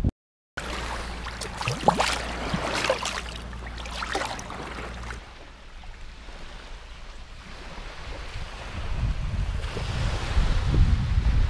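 Surf on a beach with wind buffeting the microphone, starting after a brief dropout; the wind rumble swells again in the last few seconds.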